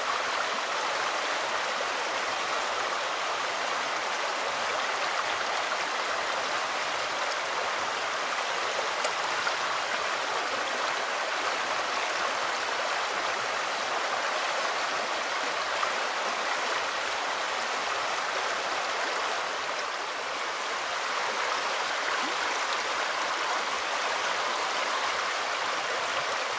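River water running steadily in a continuous, even noise, with no bird calls standing out.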